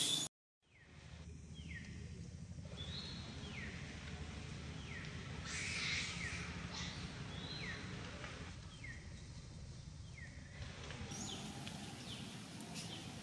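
A bird calling: a series of short, falling whistled notes, about one a second, over a steady low background hum. The sound cuts out briefly near the start.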